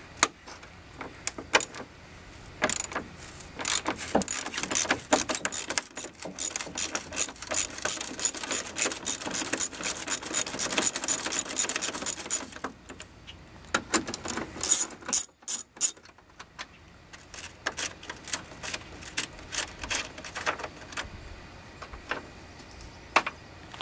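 Socket ratchet with a 10 mm socket clicking rapidly as it backs out the headlight mounting bolts. There is a fast run of clicks for about ten seconds, starting about three seconds in, then shorter bursts and scattered clicks.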